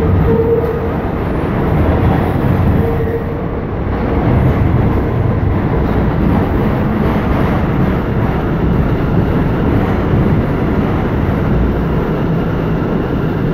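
Interior running noise of an R179 subway car under way: a steady, loud rumble of wheels on rail and car motors, with a faint steady tone over it for the first few seconds.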